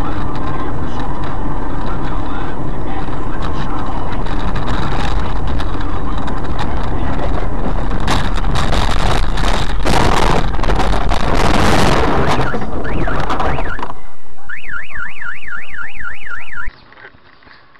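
Very loud, harsh noise with a cluster of sharp hits near the middle, then a car alarm warbling rapidly up and down for about two seconds before it cuts off.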